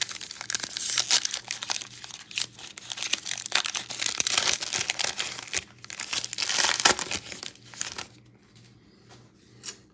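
A 2021 Panini Prizm football card pack's wrapper crinkling and tearing as it is ripped open and the cards are handled. The crackle is dense and then dies down about eight seconds in.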